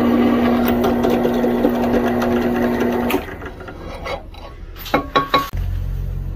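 Electric drill running steadily as a twist bit cuts through a steel knife blank, then cutting out about three seconds in. A few sharp clinks follow, and a low machine hum starts near the end.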